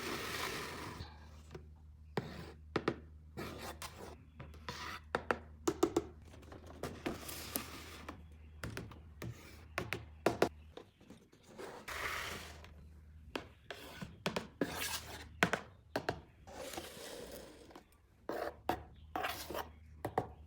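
Toy packaging being handled and opened: irregular clicks, taps and knocks with several stretches of rustling, scraping or tearing, over a faint steady low hum.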